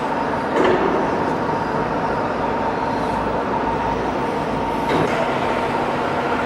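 CNC plasma cutting machine running: a steady hissing rush with a faint high steady tone, a little louder twice.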